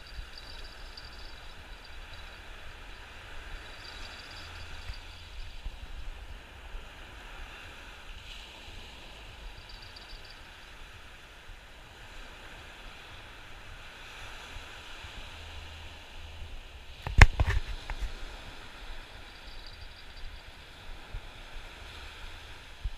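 Sea surf washing steadily against the shore rocks, with a low rumble beneath it. A sharp knock or clatter stands out about seventeen seconds in.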